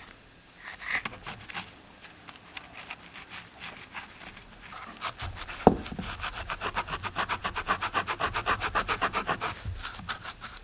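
Rapid back-and-forth rubbing strokes of hand sanding, scattered and quieter at first, then a fast, even run of louder strokes from about six seconds in, with one sharp click just before.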